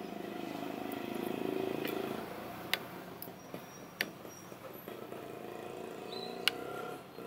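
A few sharp clinks of a metal fork and spoon against a bowl, over the steady hum of a passing vehicle's engine that swells during the first two seconds and then eases off.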